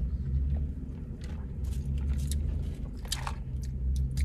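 Low, steady rumble of a car's running engine heard inside the cabin, with a few faint clicks and mouth sounds as an iced coffee drink is tasted.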